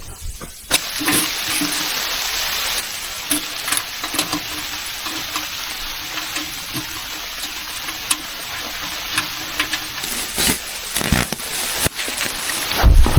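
Food sizzling in a pan with a steady hiss, broken by small clicks of stirring. A few louder knocks come near the end.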